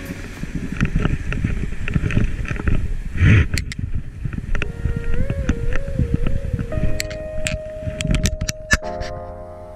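Wind buffeting an action camera's microphone as a gusting, rumbling noise, with a strong gust about three seconds in and a few sharp handling clicks near the end. Faint background music with a slow gliding melody plays underneath.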